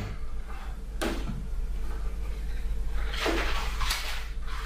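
Handling noises: a sharp knock about a second in, then a rustle from about three seconds in, over a steady low hum.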